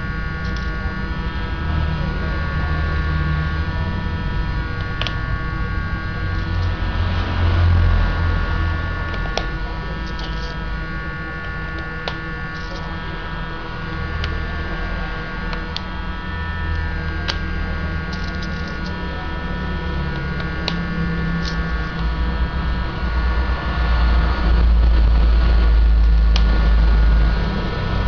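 Steady electrical hum with a low rumble, and scattered single sharp clicks every few seconds as laptop keycaps are pressed and snapped back onto a Toshiba Satellite C640 keyboard.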